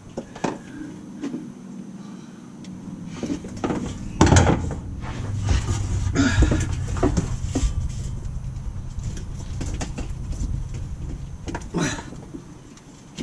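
Scattered clicks and knocks of hands working at a stuck plastic clip on a dropped fuel tank's lines and wiring, the loudest knock about four seconds in. A low rumble rises through the middle and fades near the end.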